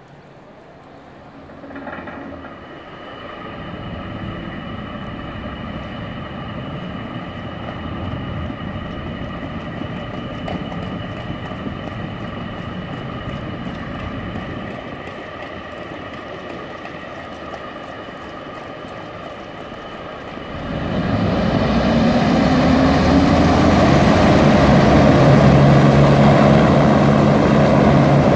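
Griffon 12000TD passenger hovercraft powering up: about two seconds in a steady machine noise with a high whine starts as the lift fans fill the skirt. About twenty seconds in it becomes much louder, with a deep steady hum, as the craft's ducted propellers take up power to move off the pad.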